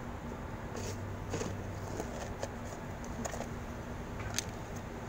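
A cat crunching dry kibble from a plastic tub: faint, irregular clicks and small rustles over a steady low hum.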